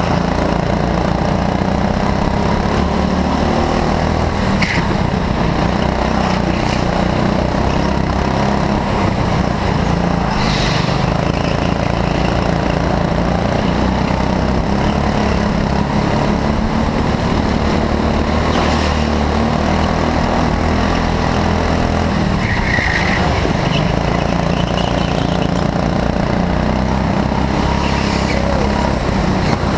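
Go-kart engine running steadily, heard from on board the kart, with a few brief tyre squeals through the corners.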